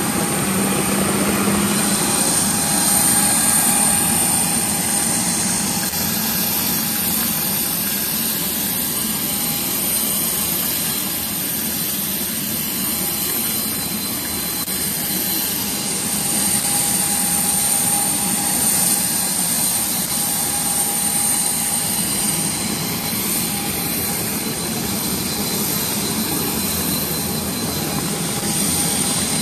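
Steady jet-turbine whine and rush of aircraft on the apron, with several high steady tones held throughout and small swells in loudness.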